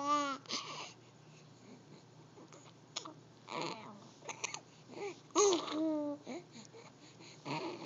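Two-month-old baby cooing and babbling: a few short, breathy vocal sounds with pauses between, and one clear pitched coo that falls away a little past halfway.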